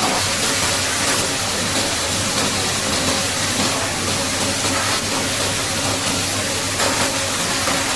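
High-pressure water jet spraying steadily with a loud hiss, over a constant low engine hum.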